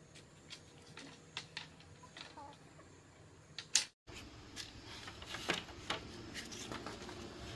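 Scattered light clicks and taps, irregular and a few per second. The sound cuts out completely for a moment about four seconds in, and the taps come thicker after it.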